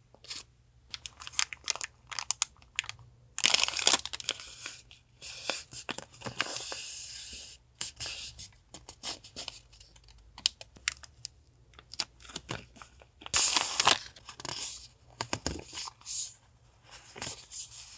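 Paper being handled for a collage: rustling, crinkling and tearing, with several longer tearing or rubbing stretches about three and a half, six and thirteen seconds in, and light taps and clicks in between.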